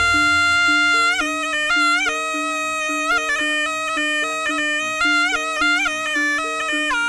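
Javanese jaranan music: a slompret, a double-reed shawm, plays a bending, wavering melody of held notes over a lower note struck about twice a second.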